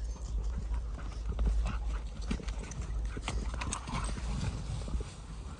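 Irregular crunching and crackling of footsteps and dog paws on dry corn stalks and stubble, over a steady low rumble of wind on the microphone.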